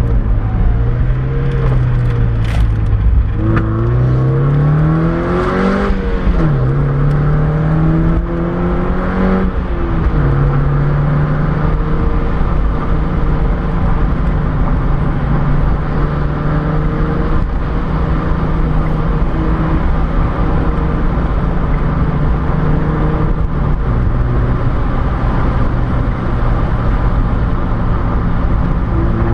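Mazda MX-5's four-cylinder engine heard from inside the car over steady road and wind noise. Its revs climb and drop sharply twice in the first ten seconds, then hold steady at a cruise, easing down slightly near the end.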